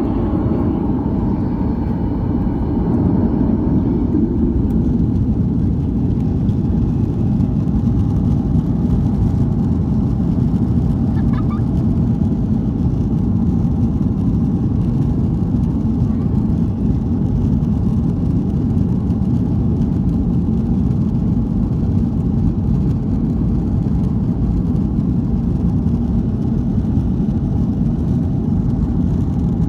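Steady cabin rumble of a Boeing 737-800 rolling on the ground: its CFM56 jet engines running, with a faint whine, over the deep noise of the aircraft's movement, heard from inside the cabin.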